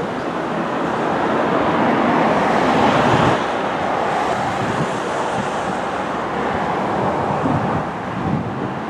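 Three GE diesel-electric locomotives (a C44-9W, an ES44AC and an ET44AC) running light as they approach, heard as a steady noise that swells to its loudest about three seconds in and then drops back.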